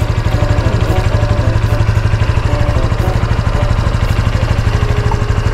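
Honda Super Cub's small single-cylinder four-stroke engine idling steadily, with an even, fast low pulse and no revving.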